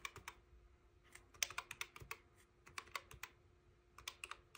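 Keys of a desk calculator with round keycaps being pressed to add up a column of figures: quick clicks in short irregular runs.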